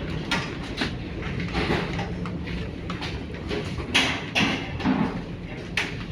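Steady low drone of a passenger ferry's engines, with several sharp knocks and clatters, the loudest about four seconds in.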